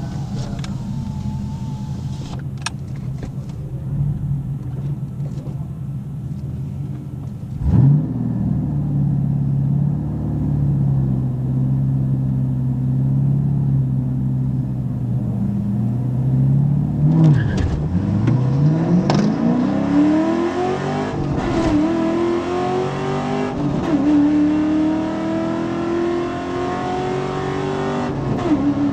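A ute's engine, heard from inside the cab, idles steadily at the drag-strip start line. About eight seconds in it is blipped up and held at a steady higher rev. Then, about 17 s in, it launches under full throttle, its pitch climbing and dropping back at each of several upshifts as it accelerates down the quarter mile.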